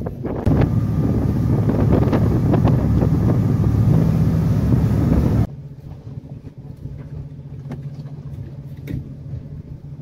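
Fishing boat's engine humming steadily, heavily buffeted by wind on the microphone with scattered knocks for the first half. About halfway through the sound cuts abruptly to a quieter, even low hum.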